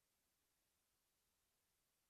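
Near silence: a faint, even hiss with no distinct sound.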